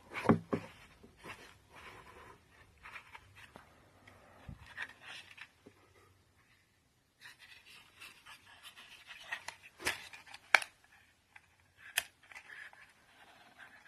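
Close handling noise: intermittent rustling and scraping with several sharp clicks, one just after the start and a few more late on. No hair dryer is running.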